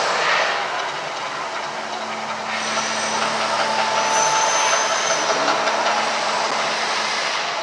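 Gas fire jets of the Mirage's artificial volcano burning in big fireballs, a loud rushing noise. One burst dies away about half a second in, and a second, longer burst starts about two and a half seconds in and fades near the end.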